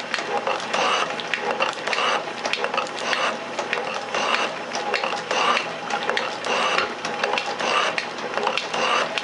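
Metal shaper running, its ram stroking back and forth about once a second as the tool cuts the metal workpiece held in the vise. Each stroke gives a repeating scraping, clicking cycle.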